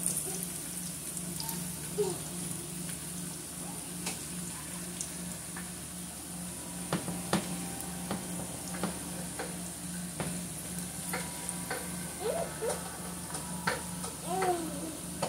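Omena, small dried silver fish, sizzling steadily in hot oil in a frying pan while a silicone spatula stirs them. The spatula scrapes and taps against the pan, with the taps coming more often in the second half.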